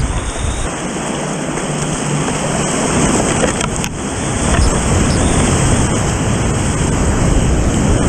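Rushing whitewater of a creek rapid heard from a kayak running it, getting louder about halfway through as the boat drops into the churning water.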